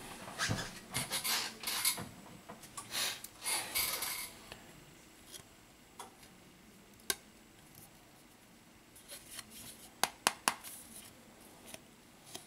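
Glass back cover of a Xiaomi Mi Note 10 Pro being peeled off its adhesive and handled, scratchy rustling and scraping for the first few seconds. Then it goes quieter, with a single sharp click and later a quick cluster of clicks and taps.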